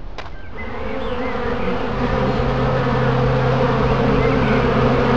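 Swarm of bees buzzing, starting about half a second in and growing steadily louder.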